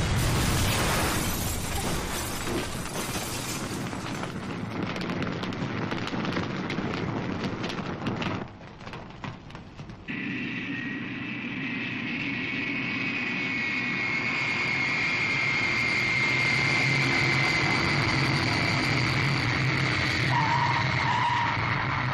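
A loud rushing noise with scattered knocks for the first eight seconds, then, after a short lull, a jet airliner's engines whining steadily and growing louder as it comes in to land and rolls along the runway.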